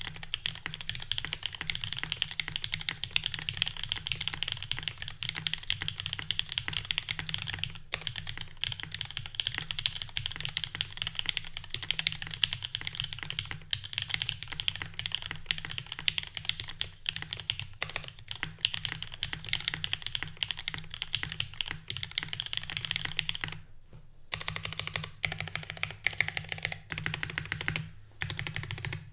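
Continuous typing on a Keycult No.2 mechanical keyboard with lubed, filmed Cherry MX Black (retooled) linear switches on a full aluminium plate with no foam, and CRP R4 keycaps: a steady, dense stream of keystrokes with two short breaks near the end.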